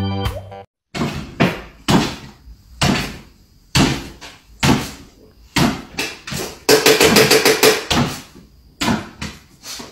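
Repeated sharp thumps, about one or two a second, as a small white dog jumps up and lands again on a wooden kitchen floor, with a busier stretch of knocking about seven seconds in.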